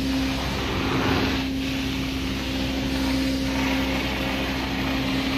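Carpet extraction wand making dry vacuum passes: a steady suction hiss over the extractor's constant hum, the hiss swelling twice.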